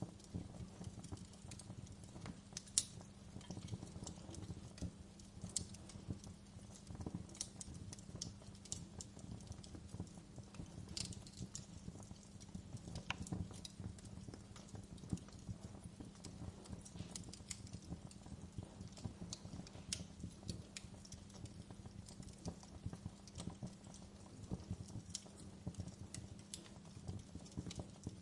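Fire crackling in a fireplace: irregular sharp pops and snaps over a low, steady rumble, with a louder pop about three seconds in.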